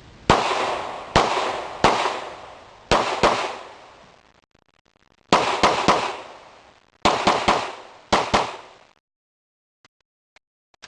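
Glock 17 9mm pistol firing about a dozen shots of PMC full metal jacket ammunition, as single shots and quick strings of two or three, each shot echoing. The firing stops about nine seconds in, followed by a few faint clicks.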